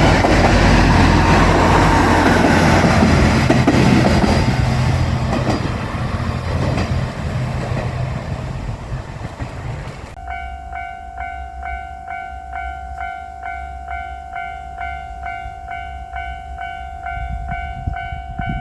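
A JR Shikoku 1000-series diesel railcar running over a level crossing, the loud rumble of engine and wheels on the rails fading away over the first several seconds. About ten seconds in the train noise drops off abruptly, and the crossing's electronic warning bell carries on alone, an even ringing about twice a second.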